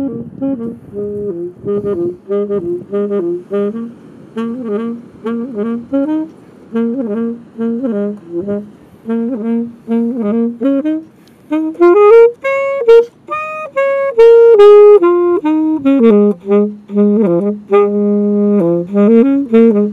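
Background music led by a solo wind-instrument melody, saxophone-like, in short repeated notes. About twelve seconds in it turns to louder, longer held notes that climb higher.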